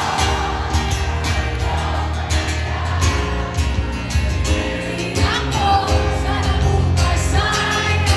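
A song with a singing voice over bass and a steady drum beat.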